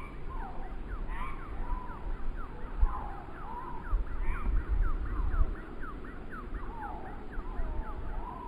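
Gusty wind buffeting the microphone in uneven low rumbles, with a quick run of short, high, falling whistled notes, about four a second, and a few wavering whistles.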